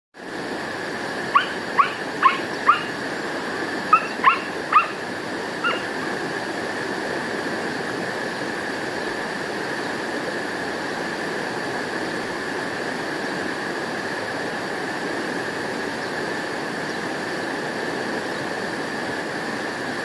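Middle spotted woodpecker calling: eight short, sharp notes in quick groups of four, then three, then one fainter, stopping about six seconds in, over a steady background hiss.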